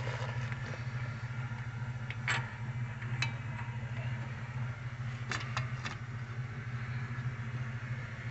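A few sharp metallic clicks and clinks of hand tools and hub bolts being handled, three of them close together about halfway through, over a steady low hum.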